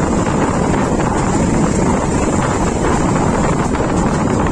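Passenger train running along the track, a steady rumble of wheels on rails, with wind rushing over the microphone.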